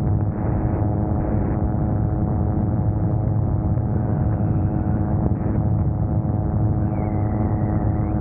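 Gyroplane engine and pusher propeller droning at a steady cruise setting, heard with air rushing past the open cockpit.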